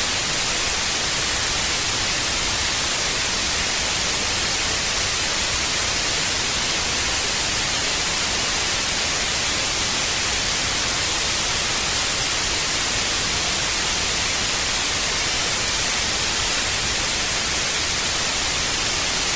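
Old television static: a steady, even hiss of white noise with no changes.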